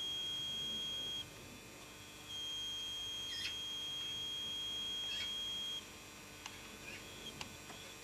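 A high, steady electronic beep tone held for seconds at a time: it cuts off about a second in and comes back a second later for about three and a half seconds. Two brief high chirps are heard over it in the middle, and a few faint clicks near the end.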